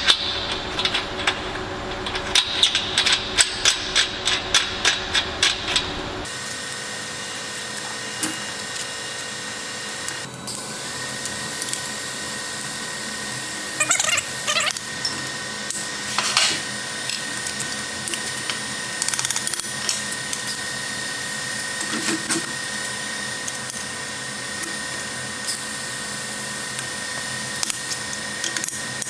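Brief hissing arcs from TIG tack welds fixing a stainless socket onto a thin-wall stainless pipe, over a steady high tone. They follow a run of sharp ticks, about three a second, in the first six seconds.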